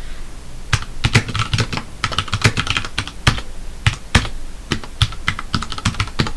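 Typing on a computer keyboard: a fast, irregular run of keystrokes with brief pauses, starting after a short gap.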